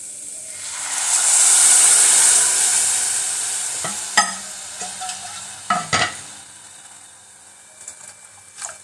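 Water poured into a hot pressure cooker of ghee-roasted moong dal, hissing loudly as it hits the hot pan and dying away over several seconds. A few sharp metal clinks of a spoon against the pot come through the fading sizzle.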